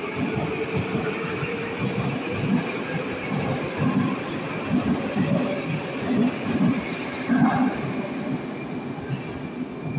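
Moscow Metro train pulling out of the station past the platform. Its traction motor whine rises in pitch over the first two seconds, then the wheels rumble and clatter over the rail joints. The sound is loudest as the last car goes by about seven and a half seconds in, then eases off.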